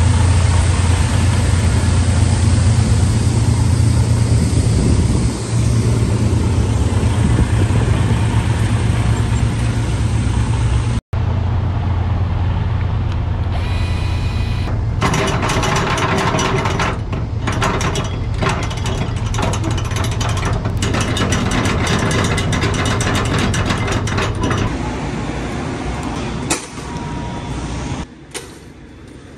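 Semi-truck diesel engine running steadily with a low hum. After a cut, rapid clicking and rattling as cargo straps are handled and wound over the engine sound. It fades to a quieter stretch near the end.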